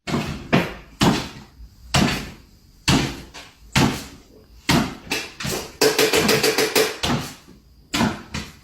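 An irregular series of sharp knocks and thumps, about a dozen, with a quick rattling run of taps a little past the middle.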